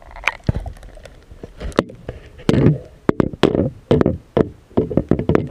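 A run of irregular knocks and taps, sparse at first and then coming in quick clusters through the second half.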